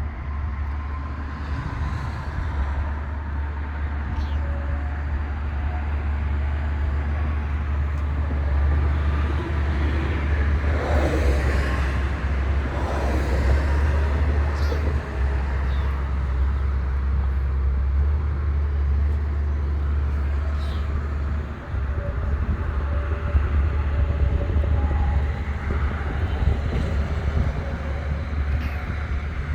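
Steady low rumble of road traffic, busier for a few seconds about ten seconds in.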